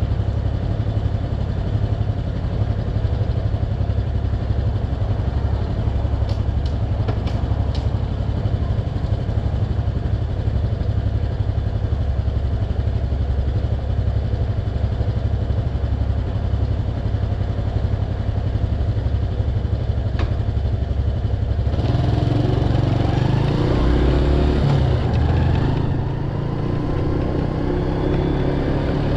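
Motorcycle engine idling at a standstill with a steady low rumble, then pulling away well into the clip, its pitch rising as it accelerates.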